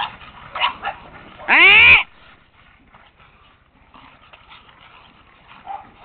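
Boston Terriers barking in play: a few short yips, then one loud, drawn-out bark about one and a half seconds in that rises and falls in pitch, and a short bark near the end.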